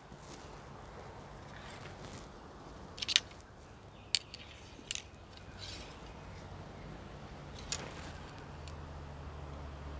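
Faint scattered clicks and taps of archery gear being handled. A double click about three seconds in is the loudest, and a low hum rises near the end.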